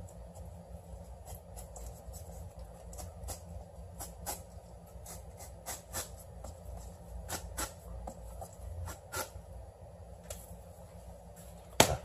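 Knife clicking and tapping on a cutting board at an irregular pace as a black sea bream is filleted for sashimi, with one louder knock near the end.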